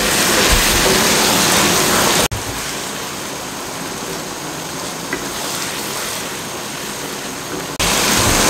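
Spinach and potato curry sizzling and bubbling in a wok on full heat while a wooden spatula stirs it, as its last water cooks off and the oil separates. The sound drops suddenly a little over two seconds in and comes back up just before the end.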